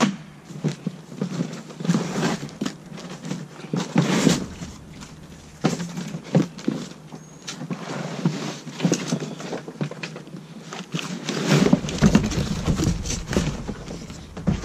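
Cardboard box and packing materials being handled: rustling, scraping and irregular light knocks. A low rumble joins in for the last few seconds.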